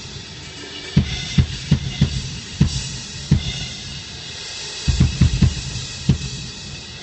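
A drum kit played in loose, irregular hits during a sound check: single kick and tom strokes about a second apart over ringing cymbals, with a quick run of hits about five seconds in.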